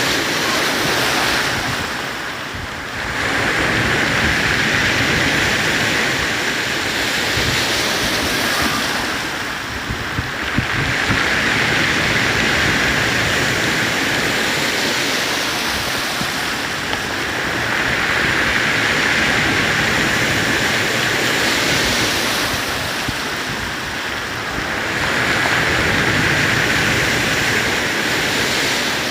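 Storm surf breaking on a beach: a continuous rush of water that swells and eases about every six to seven seconds as each wave comes in.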